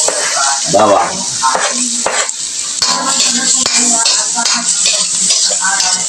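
Minced garlic sizzling as it fries in melted butter in a wok, with a spatula scraping and tapping against the pan as it is stirred.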